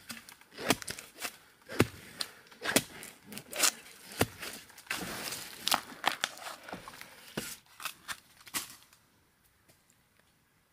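Bamboo shoot being dug from forest soil and its papery husk torn off by hand: irregular sharp knocks and crackly tearing and rustling, falling quiet after about nine seconds.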